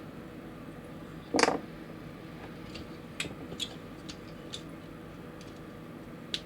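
Plastic model kit parts clicking as they are handled and clipped together: one sharper snap about a second and a half in, then a scattering of small light ticks.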